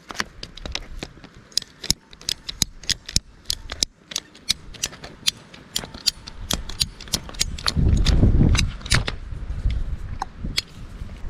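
Ratcheting PVC pipe cutter clicking over and over as it is squeezed shut through white PVC pipe. A low rumble swells briefly about eight seconds in.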